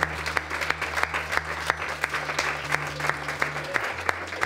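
A small audience applauding: a steady patter of hand claps.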